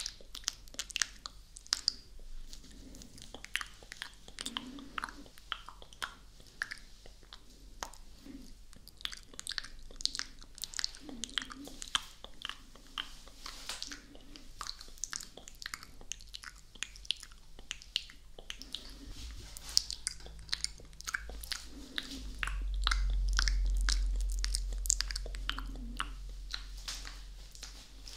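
Close-miked ASMR mouth sounds: rapid wet clicks and smacks of lips and tongue, several a second. Part way through, a low rumble swells up, becomes the loudest sound, and fades near the end.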